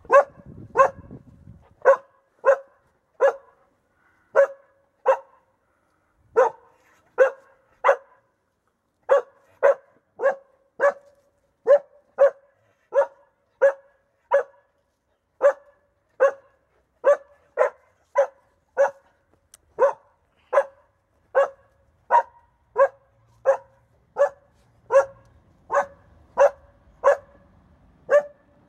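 Young Grand Munsterlander barking over and over at a wild boar, short same-pitched barks about one every three-quarters of a second with a few brief pauses: a hunting dog baying at boar.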